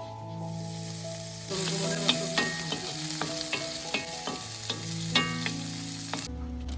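Food frying in a hot pan, the sizzle growing louder about a second and a half in, with sharp clicks of a utensil stirring. The sizzle cuts off suddenly shortly before the end. Soft background music with held notes plays underneath.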